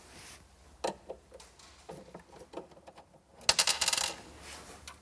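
Small metal fittings, screws and hardware, clinking: a few light clicks, then about three and a half seconds in a loud, bright metallic jingle lasting under a second as loose metal parts rattle together on a hard surface.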